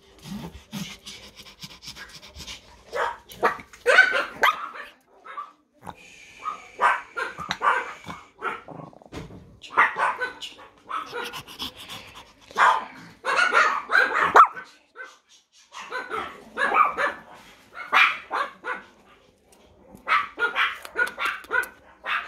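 Pomeranian barking in quick, high-pitched yaps, in bouts of a second or two with short pauses between.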